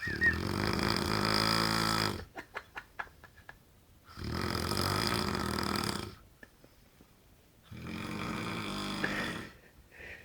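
A man snoring loudly: three long snores of about two seconds each, roughly every four seconds, the first trailing off into a short rattle of clicks.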